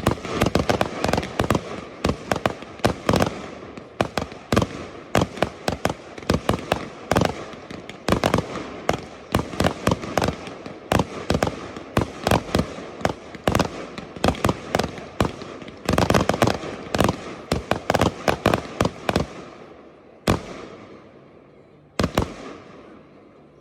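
Professional fireworks display: rapid, continuous volleys of sharp bangs and crackle. About four-fifths of the way in they thin out to a few single bangs spaced a second or two apart.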